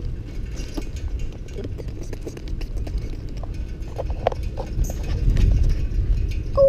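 A moving tuk-tuk rattles over a concrete street: a steady low rumble with a run of quick, irregular light clicks and knocks.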